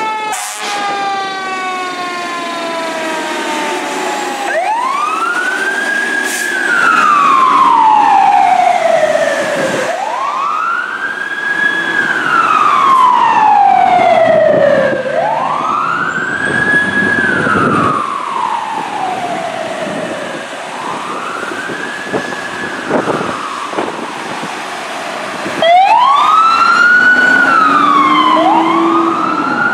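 Fire engine siren wailing in slow cycles, each rising quickly and then falling slowly over about five seconds. Near the end a second siren on the paramedic rescue truck joins in, wailing with a faster cycle.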